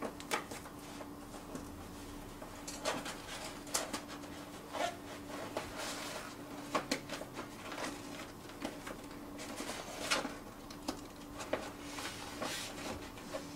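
Paper label web rustling and crinkling as it is threaded by hand over the rollers of a roll-fed label printer, with scattered light clicks and knocks against the machine's metal frame. A faint steady hum runs underneath.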